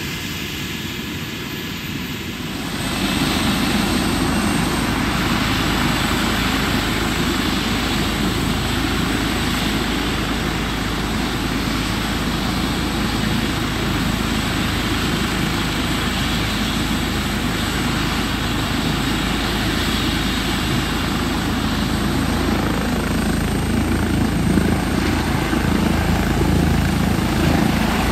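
Medical helicopter running on the ground with its turbine engines and main rotor turning, a steady heavy rotor and engine noise. It steps up in loudness about three seconds in and grows again near the end as the helicopter lifts off.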